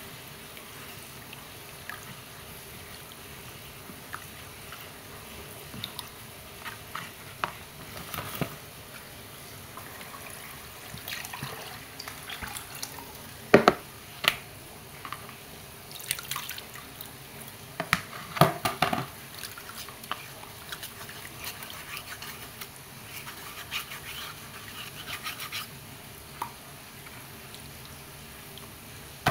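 Watery sago-flour mixture being stirred and strained through a metal sieve: scattered splashing and dripping with a few sharp knocks, the loudest about 13 and 18 seconds in.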